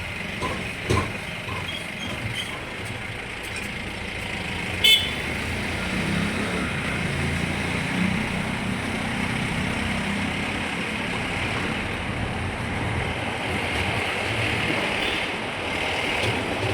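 Road vehicle running steadily on the move, with a continuous low rumble and road noise. A short, loud high-pitched blip comes about five seconds in.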